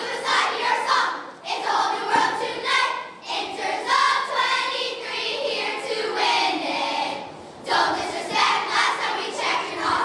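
Large group of girls chanting a cheer together in unison, with no instruments.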